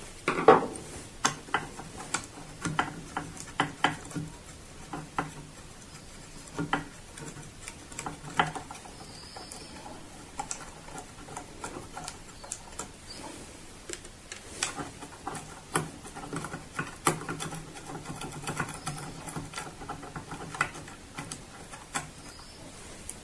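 Crosshead screwdriver undoing two small screws on a printer unit's top plate, then the plate being lifted off: many scattered light clicks, taps and scrapes of small metal and plastic parts.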